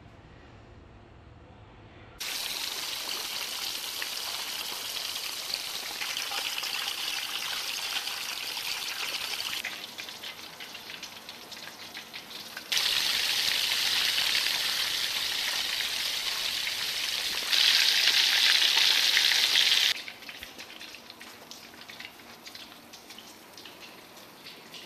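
Fish pan-frying in olive oil, sizzling steadily. The sizzle starts about two seconds in, and its loudness jumps up and down several times.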